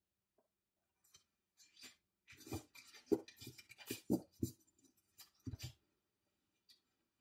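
Oracle cards being handled: a run of short taps, clicks and slides as cards are set down on the pile and the deck is picked up and squared, dying away a little before the end.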